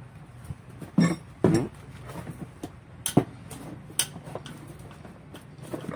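A wrench and bolts clinking and clanking against a stripped Isuzu 4JJ1 diesel engine block as it is being unbolted: scattered sharp metallic clinks, the loudest about a second in, a second and a half in, and just after three seconds.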